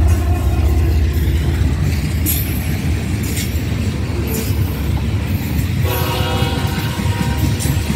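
A GE ES44AC diesel-electric locomotive's V12 engine rumbles as it passes close by and eases off within the first second or so. Loaded tank cars then roll past, their wheels clicking over the rail joints. About six seconds in, a steady chord of held tones joins the rumble.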